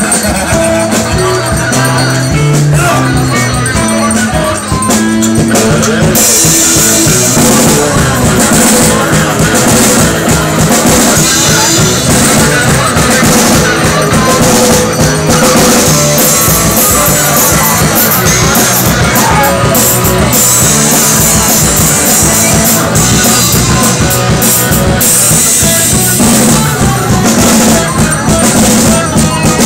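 Live rock band playing loudly. Guitars carry the first few seconds, then the drum kit comes in with cymbals about six seconds in and the full band plays on.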